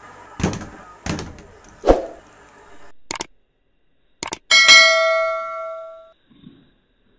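A homemade speed bag struck three times, dull thuds about a second apart. After a cut, a single bell ding about four and a half seconds in rings out and dies away over about a second and a half.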